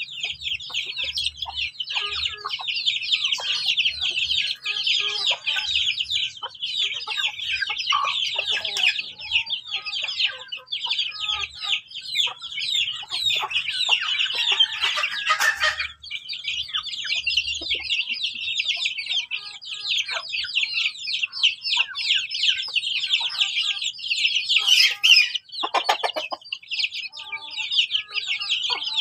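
A brood of village chicken chicks peeping continuously, a dense chorus of rapid high-pitched cheeps, with hens clucking now and then. Near the end one brief louder call cuts through.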